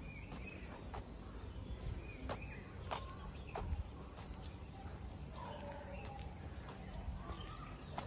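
Faint outdoor background of scattered bird chirps over a steady high insect buzz, with a few light clicks.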